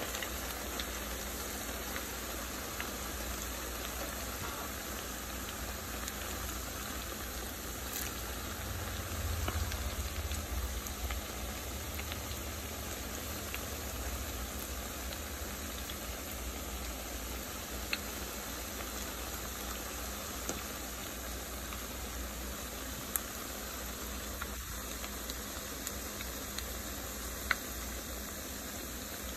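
Salmon patties frying in hot oil in a skillet: a steady sizzle with a few scattered pops.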